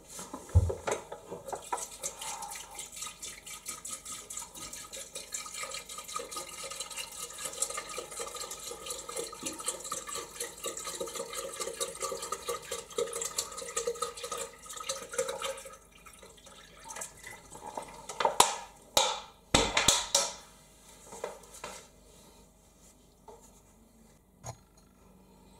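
Water poured from a plastic bottle through a funnel into a dishwasher's salt reservoir for its first filling: a steady pouring stream for about fifteen seconds, then trickles. A few loud knocks come a few seconds after the pour stops, and a thump just after the start.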